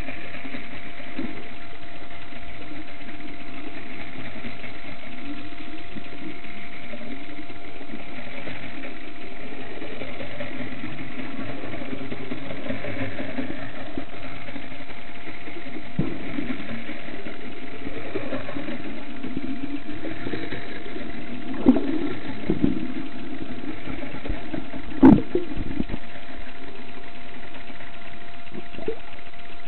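Boat engine running steadily, heard underwater as a continuous hum. There are two short knocks a little past two-thirds of the way through.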